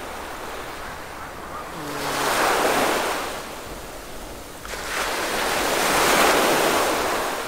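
Small surf breaking and washing up a sandy beach: two waves surge in, each swelling and fading over about two seconds.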